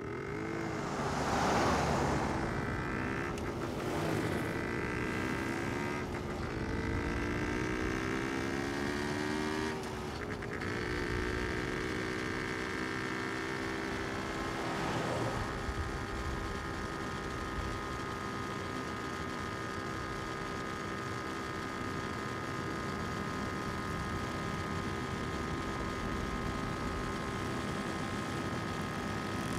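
A car driving, heard from inside: a steady engine and road hum. Its pitch wavers over the first several seconds and then holds steady, with a few brief knocks early on.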